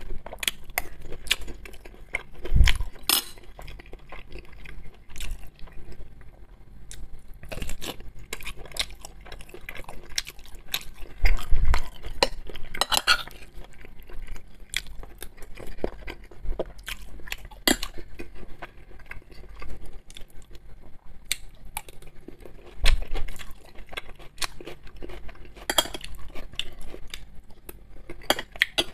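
Close-miked eating: a metal spoon and fork clinking and scraping on ceramic plates, with chewing of buckwheat and vegetable salad between the clinks. Several louder knocks of cutlery against plate stand out among the many small clicks.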